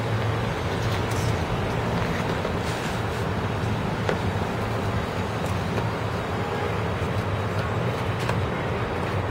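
Steady low rumble of background traffic noise, with a few faint taps and scrapes from a cardboard box and its sleeve being handled.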